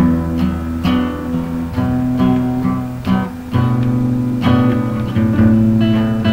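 Guitar-led band music: acoustic guitar strumming chords over low bass notes that change every couple of seconds.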